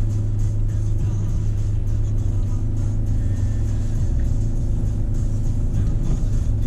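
Steady low engine and road rumble heard from inside a car's cabin as it moves slowly in city traffic, with music playing underneath.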